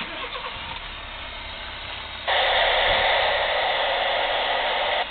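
Static hiss from a handheld FM radio's speaker, switching on abruptly about two seconds in, holding steady for about three seconds, then cutting off suddenly, as the squelch opens and closes on noise while the radio listens for the satellite's downlink.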